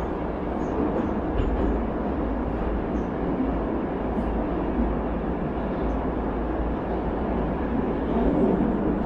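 St Petersburg Metro train running between stations, heard from inside the carriage as a steady rumble.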